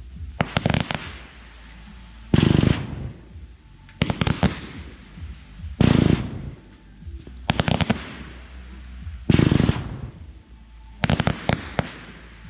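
Aerial fireworks bursting in a steady barrage, about one every one and a half to two seconds: heavy booms alternate with quick clusters of sharp cracks.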